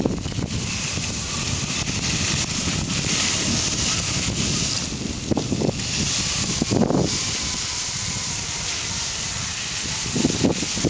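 Wind rushing over the microphone and skis hissing over snow on a downhill run, with a few louder swishes about halfway through and again near the end.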